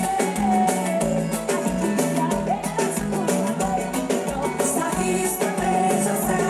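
Sertanejo band playing an upbeat song with a steady beat.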